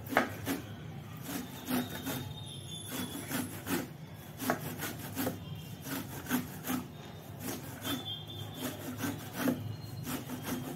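Fresh corn cob being grated on a metal grater: quick, repeated rasping strokes, about two or three a second, as the kernels are scraped off into a pulp.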